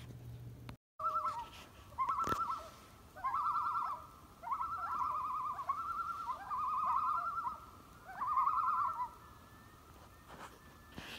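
A bird calling: a series of short, quavering, warbling phrases, about seven in all, each under a second long, repeated with brief gaps and a pause near the end.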